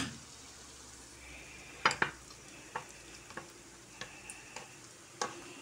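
Chopped onions frying in a pan with a faint steady sizzle, while a metal spoon clicks and scrapes against the pan and the glass jar as paste is scooped out and dropped in: a sharp click at the start, two more about two seconds in, then lighter ticks.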